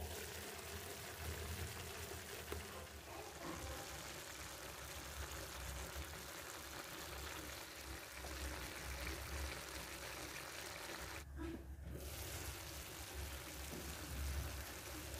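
Faint, steady simmering of sweet potato cubes and raisins in a frying pan, a soft bubbling hiss of the cooking liquid over a low hum. The hiss briefly drops out about eleven seconds in.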